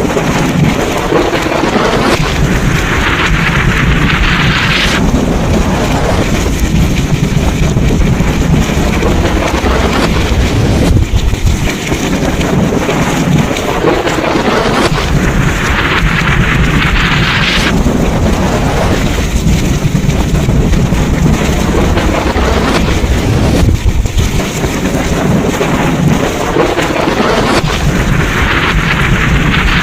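Thunderstorm: steady heavy rain and wind with a deep thunder rumble underneath. A hissing swell rises and then cuts off sharply three times, about every twelve seconds.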